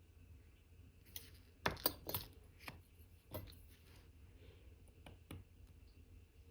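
Small, light metallic clicks and taps of watchmaker's tweezers and tools handling parts of an Omega Cal.1109 watch movement during assembly. They come scattered, with a quick cluster of the loudest about two seconds in.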